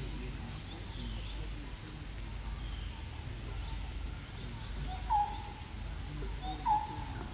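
A bird calling in the background: a short two-note call, a brief lower note stepping up to a longer higher one, given twice about a second and a half apart in the second half, over faint higher chirps and a steady low rumble.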